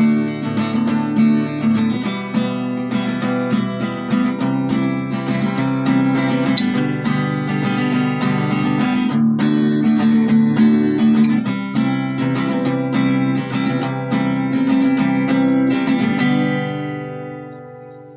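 Intro music of strummed acoustic guitar, ending about two seconds before the end on a last chord that rings out and fades.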